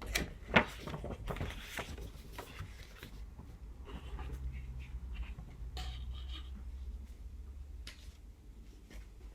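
Paper and cardboard of a K-pop album's packaging and poster being handled: scattered rustling and small taps, with one sharp knock about half a second in.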